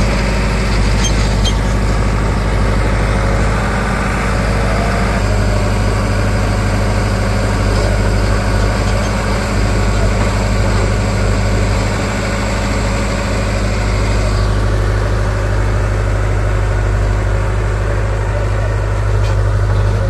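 Diesel engines of a backhoe loader and a tractor running side by side close by, a steady low drone with no break.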